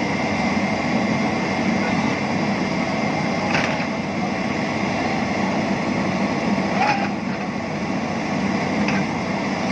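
Heavy machine's diesel engine running steadily, likely a JCB 3DX backhoe loader, with voices in the background. Three short knocks come through, about a third of the way in, about two-thirds of the way in, and near the end.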